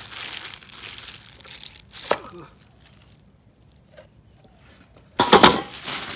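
Thin plastic bags rustling and crinkling as raw lamb is handled: a clear bag crinkles as a lamb leg is pulled out, with a single knock about two seconds in. Near the end a red plastic bag crinkles loudly as it is opened over a steel basin of bones.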